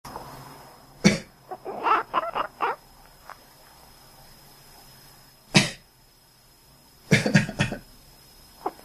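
A person coughs sharply, and a pet cat answers with a quick run of short calls; this happens twice, the second time with a burst of several coughs and calls, and the cat starts calling again near the end.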